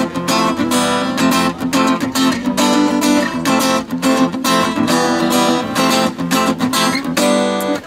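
Acoustic guitar strummed in a quick, steady rhythm, breaking off briefly near the end.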